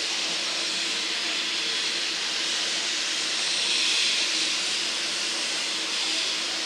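Steam locomotive venting steam in a steady, even hiss.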